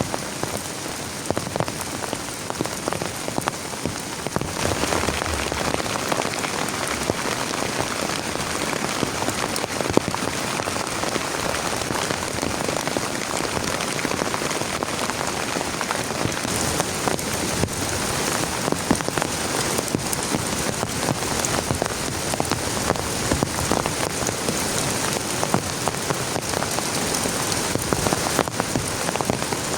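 Heavy rain falling, a dense patter of many drops that grows louder about four and a half seconds in.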